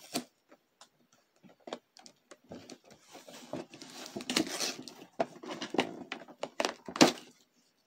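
Cardboard toy box being torn open by hand: scattered crackles and rips, densest in the middle, with a few sharp snaps, the loudest near the end.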